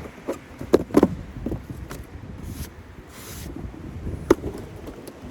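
A few sharp knocks, the loudest about a second in and another near the end, over a low rumble.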